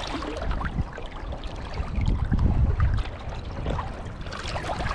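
Shallow river water sloshing and splashing around a wading angler's legs, over a low steady rumble of moving water.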